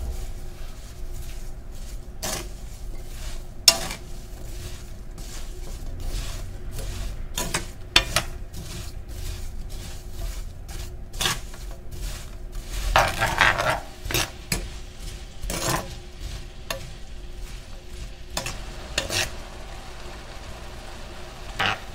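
Wooden spatula stirring diced apples and brown sugar in a stainless-steel frying pan: irregular scrapes and knocks against the pan, the sharpest a few seconds in and at about eight seconds, with a longer run of scraping around thirteen seconds. Under it the apples sizzle faintly over medium heat as they begin to give up their juice.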